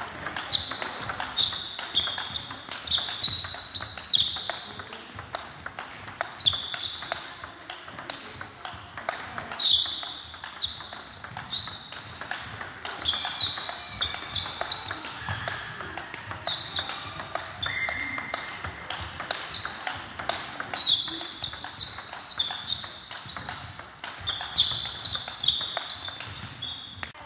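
Table-tennis rally: the ball clicking sharply and quickly off the bats and the table, several hits a second, with short high squeaks in between.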